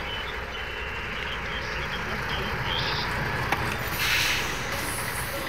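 Semi-truck's diesel engine running with a steady low rumble as the truck pulls in, and a short, loud burst of hiss about four seconds in.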